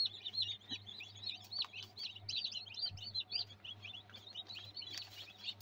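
Newly hatched chicks inside an egg incubator peeping constantly, many short high peeps overlapping several times a second, over a faint steady low hum.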